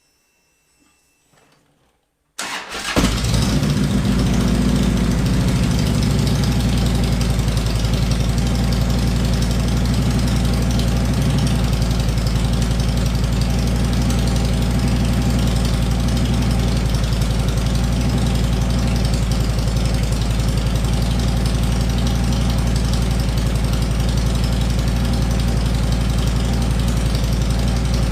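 A motorcycle engine starts about two seconds in and settles into a steady idle, its exhaust running to test a carbon monoxide detector.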